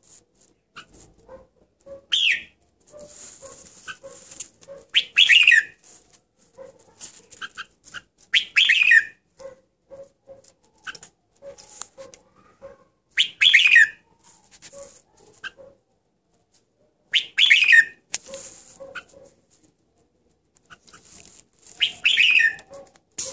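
Caged red-whiskered bulbul singing short, loud chirpy phrases, six of them about four seconds apart, with faint softer notes in between.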